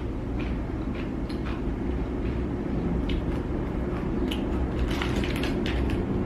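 Close-up chewing: wet mouth clicks and squishes at an irregular pace, over a steady low hum.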